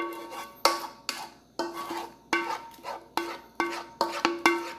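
A metal cooking pan being knocked again and again to shake the last of the melted soap out of it. It gives about a dozen sharp knocks, two to three a second, and each one rings on the same few pitches before dying away.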